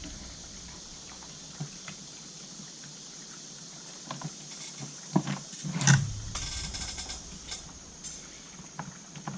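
Small clicks and knocks of plastic and metal chainsaw parts being handled and worked into place, with one louder knock about six seconds in followed by a brief rattle.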